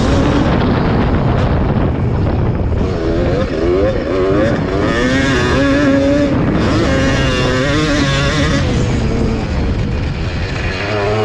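1991 Yamaha WR250 two-stroke single-cylinder engine heard from on board while racing, its pitch swinging up and down again and again as the throttle is worked.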